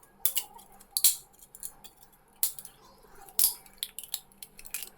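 Plastic support material being broken away from a 3D-printed plastic part: irregular sharp snaps and clicks, with about five louder cracks among smaller ticks. The supports are stiff and hard to remove.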